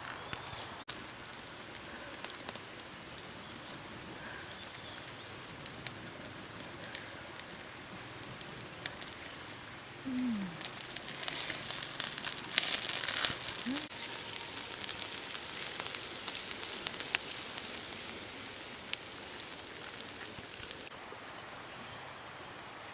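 Wood campfire crackling and hissing under a whole chicken roasting on a bamboo spit, with many small pops; the hiss and crackle swell louder through the middle and then settle back.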